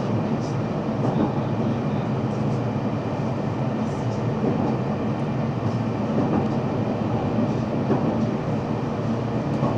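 Steady running noise of a JR Central 313 series electric train heard from its leading motor car: a continuous rumble of wheels on rail at an even speed, with a few faint ticks.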